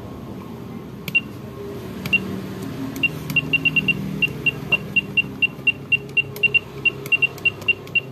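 Short electronic key-press beeps, all at one high pitch: two spaced out about a second apart, then a quick irregular run of roughly three to four a second, as keys are tapped on an electronic keypad.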